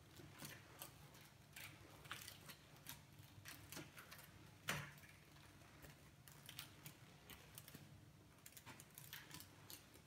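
Faint, irregular small clicks and taps of a kitten's paws and claws on a tiled floor as it bats at a moth, with one sharper tap about halfway through.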